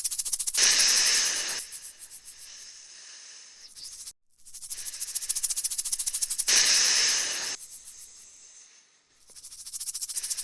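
Rattlesnake's tail rattle buzzing in a fast, even rattle that fades and swells, broken twice by a loud snake hiss about a second long.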